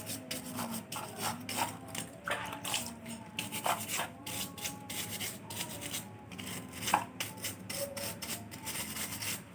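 Scrubbing and rubbing at the parts of a washing machine's water inlet valve during cleaning: an irregular run of short scraping strokes. The cleaning is meant to clear a blocked valve that lets water run on without stopping.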